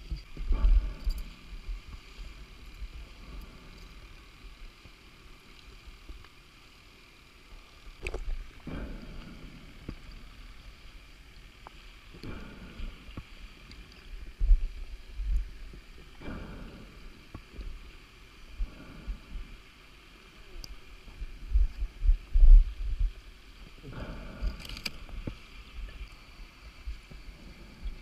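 A scuba diver's breathing heard underwater: exhaled bubbles rush and gurgle past the camera about every four seconds. Low rumbling knocks from the diver's movement against the camera are loudest about three quarters of the way through.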